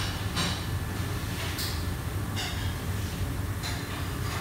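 Steady low rumble of a commercial kitchen range and extraction hood, with short metallic scrapes and clinks every second or so as a long-handled utensil stirs in a pot.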